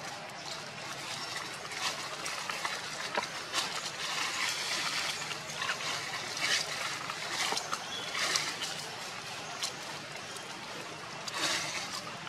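Dry leaves rustling and crackling in several short bursts over a steady background hiss.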